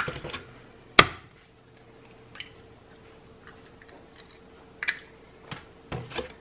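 Raw eggs being cracked and opened by hand: a sharp eggshell crack about a second in, then a few lighter clicks and taps of shell and the egg carton, over a faint steady hum.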